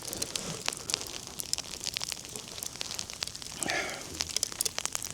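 Crunching footsteps in snow, with many irregular small crackles and clicks and a brief muffled sound about three and a half seconds in.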